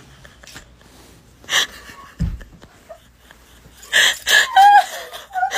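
A young woman laughing so hard she can barely make a sound: a sharp gasping breath, a dull low thump, then wheezing gasps that break into high, squeaky laughter near the end.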